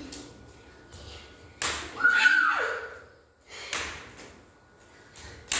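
A small rubber ball hitting a hard tiled floor in a few separate thuds, roughly two seconds apart. A short falling squeal comes about two seconds in.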